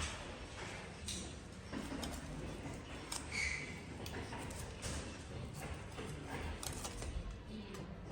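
Scattered knocks and clicks over a low background rumble, with a brief high squeak about three and a half seconds in.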